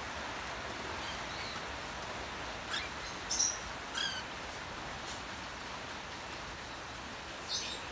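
Cockatiels giving about half a dozen short chirps, the loudest a little before the middle, over a steady hiss of falling rain.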